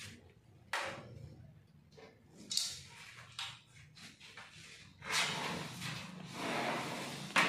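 A few light knocks, then an aluminium sliding window panel running along its track with a long scraping rumble, stopping with a sharp knock against the frame.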